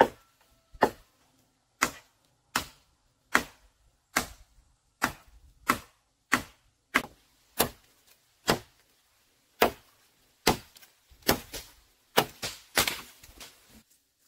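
Bamboo being chopped with a bladed tool: a steady series of sharp chopping strokes, about one a second, coming faster and closer together in the last few seconds.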